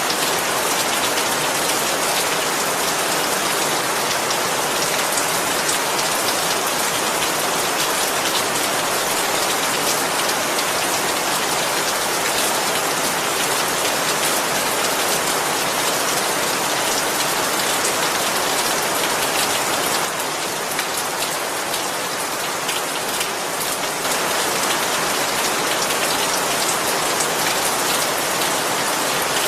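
Steady heavy rain falling on a surface, a dense hiss of drops, easing slightly for a few seconds past the two-thirds mark.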